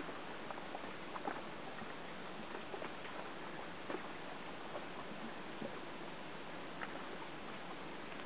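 Water lapping and splashing against a boat's hull: a steady wash with many small irregular splashes and slaps.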